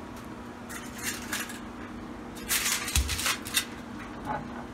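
Aluminium foil crinkling in short bursts as it is handled, about a second in and again around the third second, with a soft knock in the middle, over a steady low hum.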